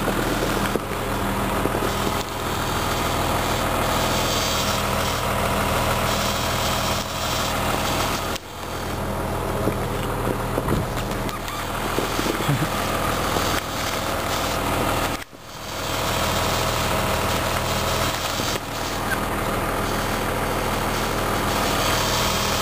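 Snowmobile-trail groomer's engine running steadily under load with a constant low drone. The sound drops out briefly twice.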